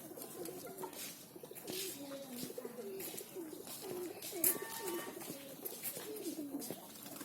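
Pigeons cooing, a continuous low, wavering call that rises and falls without a break.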